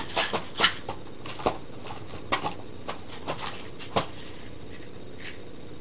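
Light knocks and clicks of objects being handled: several close together in the first second, then a few scattered ones, the last sharp one about four seconds in.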